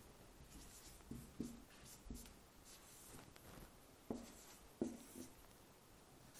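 Marker pen writing on a whiteboard: faint strokes with a few short squeaks, clustered about a second in and again around four to five seconds in, as numbers and brackets are drawn.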